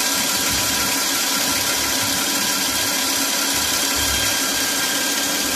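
Audi engine idling steadily with no RPM fluctuation, its crankcase ventilation (PCV) fault that caused the rough, hunting idle now repaired.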